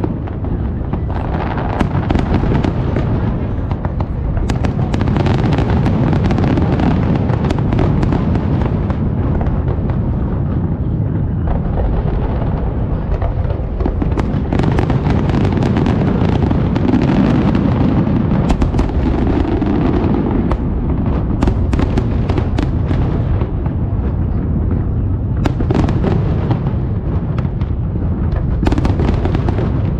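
Aerial fireworks barrage: a continuous overlapping rumble of shell bursts, with many sharp cracks and pops throughout.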